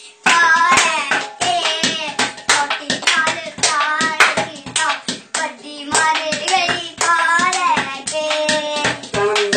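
Singing accompanied by rapid hand drumming on an upturned metal cooking pot and steel plates used as improvised drums. A brief pause right at the start, then the beating and the sung melody run on together.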